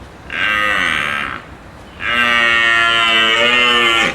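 Cow mooing twice: a call of about a second, then a longer, steady call of about two seconds.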